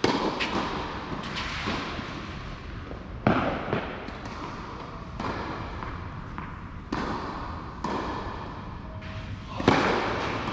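Tennis rally on a clay court: sharp pops of racquets striking the ball, one every second and a half to two seconds, with softer ball bounces between, each hit ringing briefly in the covered hall.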